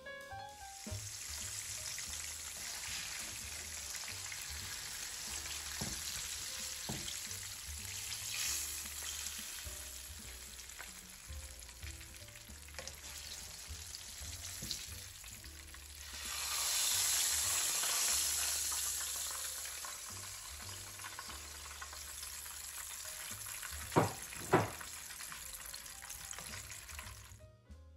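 Food frying and sizzling in a pot on the stove, a steady hiss that swells louder for a few seconds just past the middle. Two sharp knocks sound close together near the end.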